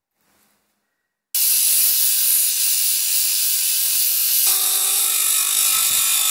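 Benchtop disc sander grinding a metal bar from a paper cutter: a loud, steady hissing grind that starts suddenly about a second in. A few steady tones join it near the end.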